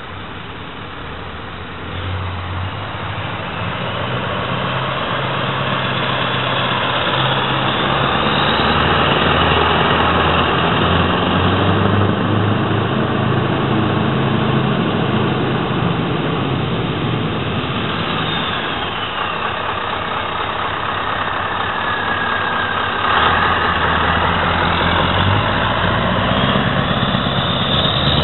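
Scania V8 truck engine running at low revs as the tractor unit pulls away and drives past, its low note shifting in pitch and growing louder, loudest near the end as it passes close by.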